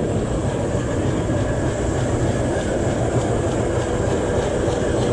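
Blacksmith forging: a steady low roar with faint, evenly spaced hammer blows on hot steel, about three to four a second, starting about halfway through.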